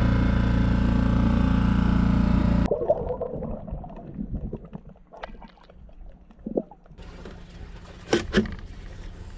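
A dinghy's outboard motor running steadily at speed, cut off suddenly after about two and a half seconds. Then quieter underwater sounds, a low rumbling with scattered clicks, and near the end a steady hiss with a couple of sharp knocks.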